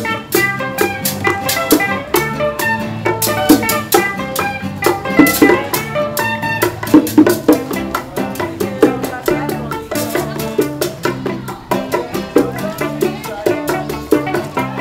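Instrumental bachata: a picked guitar melody over bass, bongos and a scraping güira keeping a steady beat.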